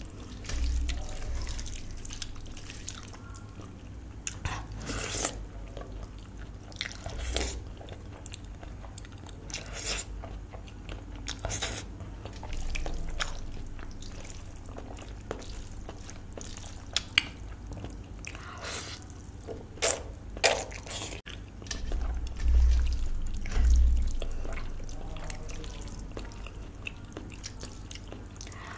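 Close-miked eating sounds of a person eating spicy ramen and a cheeseburger: wet chewing and mouth noises with scattered sharp clicks, and a few low thumps.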